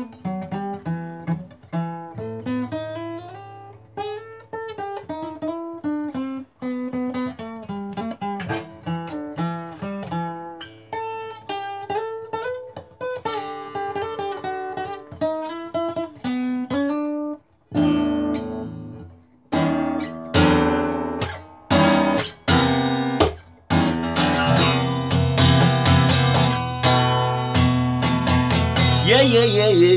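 Acoustic guitar played solo: a picked melody of single notes and chords, then after a short pause a little over halfway through, louder strummed chords.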